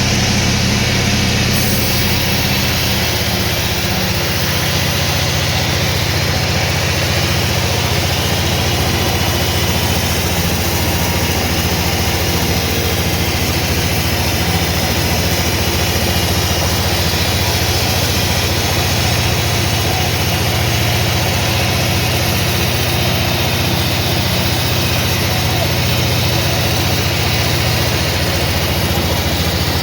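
Sawmill machinery running steadily: a low, engine-like hum under a constant noisy whir.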